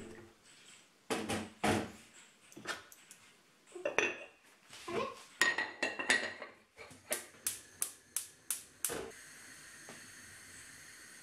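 Clinks and knocks of a black clay rice pot and its lid being handled and the lid set on. From about nine seconds in, a steady hiss of the gas burner heating the pot.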